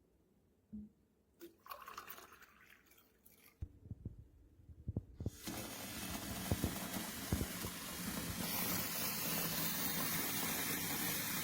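A few knocks and plastic clicks, then, from about five seconds in, a steady rush of tap water running into a plastic filter jug, growing slightly fuller near the end.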